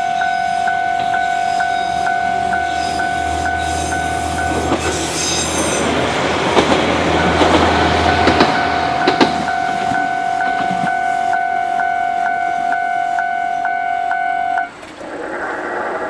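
Japanese level-crossing warning bell ringing steadily at about two strikes a second, while a diesel railcar passes over the crossing with a low rumble and rattling clatter about five to nine seconds in. The bell cuts off suddenly near the end as the crossing barriers begin to rise.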